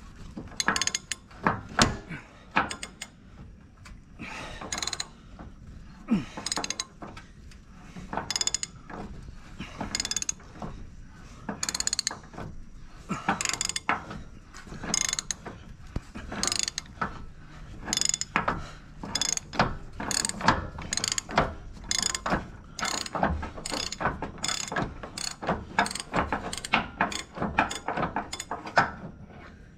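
Ratchet wrench clicking in a long run of quick strokes, about two a second, as a nut on the disc harrow is worked loose.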